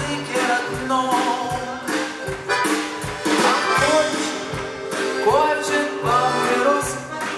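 Live band music: a male singer with a button accordion over a steady beat, the melody gliding up and down.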